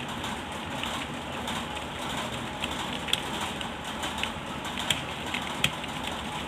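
Steady hiss with a few scattered sharp clicks.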